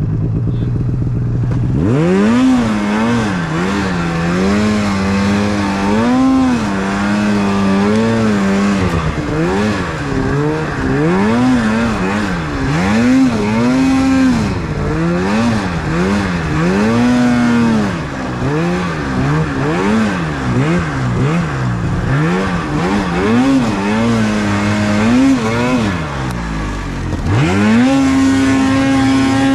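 Snowmobile engine revving up and down over and over while being ridden through deep powder, the throttle worked in repeated blips. Near the end it holds at a steady high pitch.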